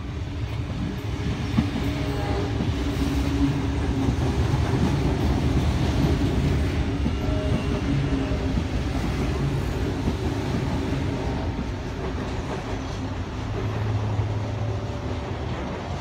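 Sydney Trains Tangara electric multiple unit passing through the station without stopping: a steady rumble of wheels on rail with a low hum. It builds toward the middle and eases off near the end.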